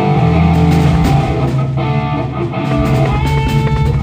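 Rock band playing loudly during a sound check: electric guitar over a drum kit, with strong low bass notes.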